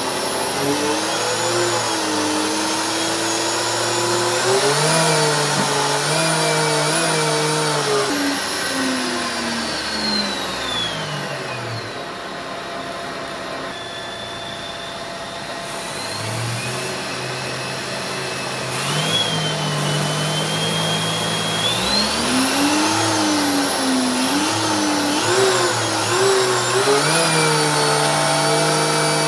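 Electric motor driving a 3D-printed ABS clutch with a plywood friction plate, running under load with a wavering pitch. About ten seconds in it slows down, and it speeds back up around twenty seconds in.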